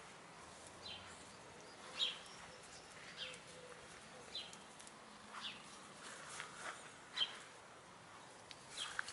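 A bird's short, high chirp repeated about once a second, over faint rustling and pecking of hens foraging in grass.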